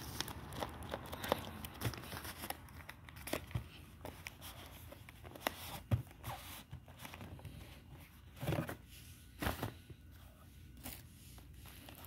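Cardboard phone box handled on bubble wrap and paper: scattered rustles, light taps and scrapes of cardboard as the lid is worked off, with two louder scrapes about eight and a half and nine and a half seconds in.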